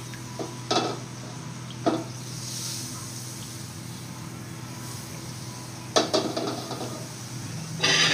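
A metal utensil scraping and clinking against a frying pan four times: about a second in, two seconds in, around six seconds, and a longer scrape near the end. Under it, pancakes fry with a soft sizzle over a steady low hum.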